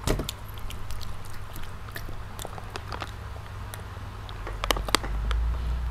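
Close-miked eating sounds from children eating fried chicken and rice by hand: scattered wet mouth clicks and smacks of chewing over a low steady hum. The hum grows louder near the end, and two sharp clicks come just before it.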